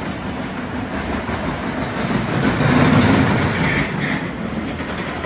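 Interpark Rampage roller coaster train running along its track, a steady rumble that grows louder about three seconds in and then eases off.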